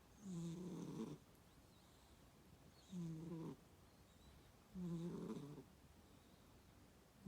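A cat snoring: three short snores about two seconds apart, each lasting under a second, with a fourth starting right at the end.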